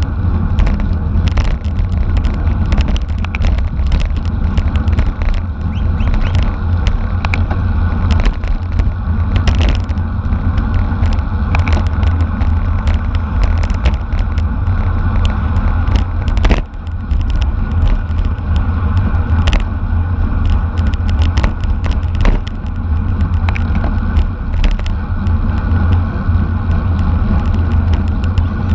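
Wind noise and road rumble on a camera moving with a bicycle race, a heavy steady low rush with many short clicks and knocks scattered through it. The noise dips briefly about two thirds of the way in.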